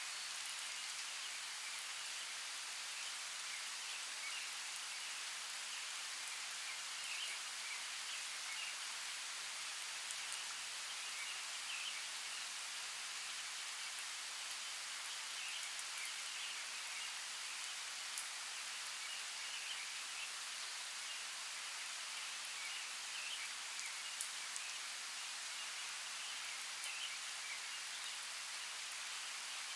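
Steady rain falling, an even hiss, with faint short chirps scattered through it.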